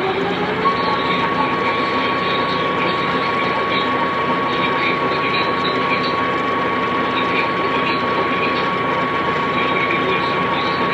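Funai VCR spinning a tape at high speed, its motor whine climbing in pitch and then holding a steady high whine from about a second in, over a continuous mechanical whir.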